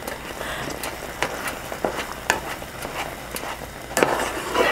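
A white plastic spatula stirring and scraping a thick mashed-potato and cream mixture in a nonstick frying pan, with irregular light knocks of the spatula against the pan.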